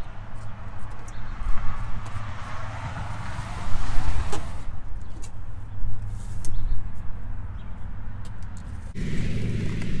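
Flexible dryer-vent cleaning rod being pushed and pulled through an exterior dryer vent hood, scraping and clicking against the hood and duct, over a steady low rumble.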